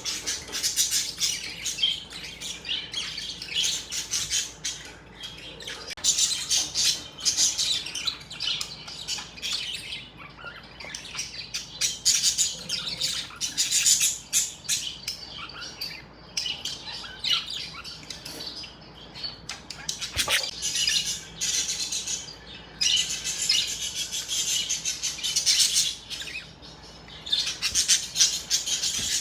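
Budgerigars chirping and chattering, a dense run of quick high chirps and warbles coming in clusters of a few seconds.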